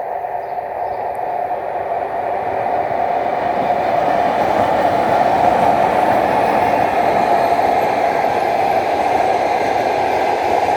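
ChS7 Škoda-built twin-section DC electric locomotive hauling an express passenger train, approaching: the running noise of the locomotive and its wheels on the rails grows steadily louder over the first five seconds or so, then holds.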